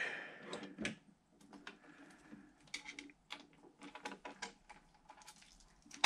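Faint, scattered clicks and taps of small screwdrivers against metal screws and the CPU bracket on a computer logic board, with one louder knock about a second in.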